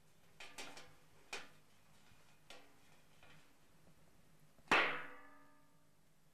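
A metal oriental serving tray being handled, with a few light knocks and clinks, then struck once a little under five seconds in, the loudest sound, ringing out and fading over about a second and a half.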